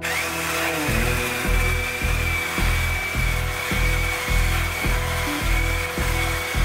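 Rechargeable cordless electric chainsaw spinning up and then running at a steady high-pitched motor whine as it cuts down through a small green log. Background music with a steady beat plays underneath.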